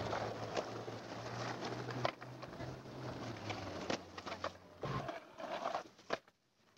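Skateboard wheels rolling over rough asphalt, with several sharp clacks of the board striking the ground, and a low steady hum under most of it that cuts off about five seconds in.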